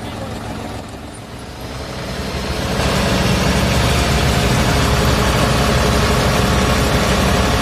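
John Deere 5050E tractor's three-cylinder diesel engine, coupled to a paddy thresher by its PTO shaft, running low and then throttled up about two seconds in. It climbs to a steady higher speed, near 1500 rpm, to drive the thresher.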